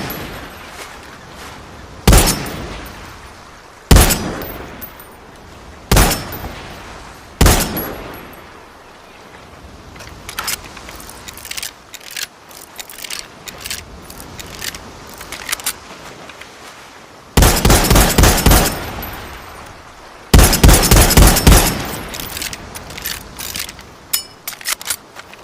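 SKS semi-automatic rifle sound effect. Four single shots come about two seconds apart, then fainter scattered cracks. Two rapid strings of shots follow about halfway through, then more scattered shots near the end.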